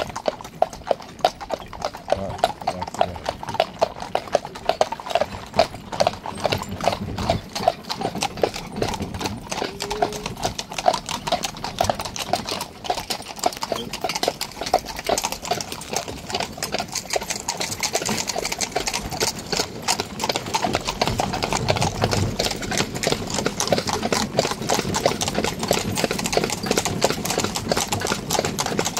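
Horses' hooves clip-clopping on a paved road as they pull a carriage, a steady run of sharp strikes, with a steadier rushing noise joining in the second half.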